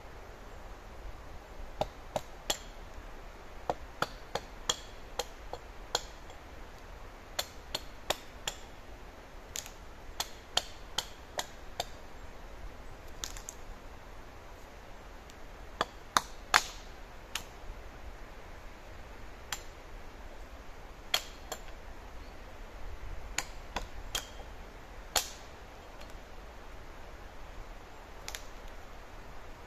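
Irregular sharp knocks of a hand tool striking wood, some with a faint metallic ring, coming every second or so with gaps, the loudest a quick pair about halfway through.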